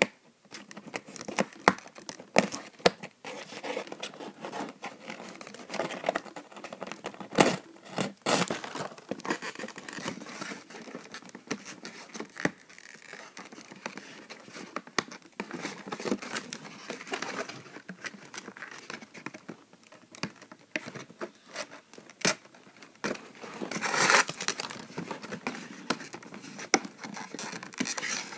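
A cardboard toy box being handled while its plastic twist ties are worked loose: irregular clicks, scrapes and rustling of cardboard, with a longer rustle near the end.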